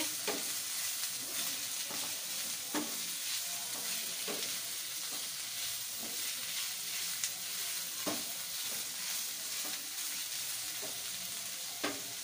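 Shredded chicken and onions sizzling steadily in oil in a non-stick frying pan while being stirred with a wooden spatula, which now and then knocks or scrapes against the pan.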